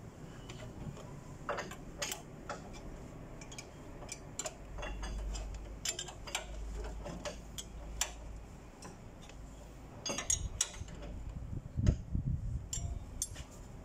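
Scattered metallic clicks and taps of a spanner working bolts on a forklift's exhaust bracket, with a quick run of clicks and a few heavier knocks near the end.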